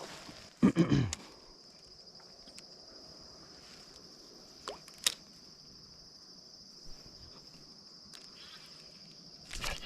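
Insects buzzing in a steady, high, even drone, with a few sharp clicks partway through. A short, louder pitched sound comes about a second in.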